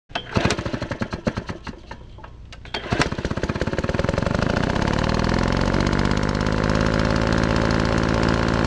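A small engine sputtering with irregular pops, then catching about three seconds in and running steadily, its pitch rising as it revs up and then holding.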